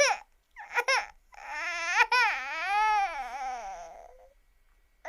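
Baby crying: a short cry at the start and another about a second in, then one long cry of about three seconds rising and falling in pitch, and a brief cry again at the end.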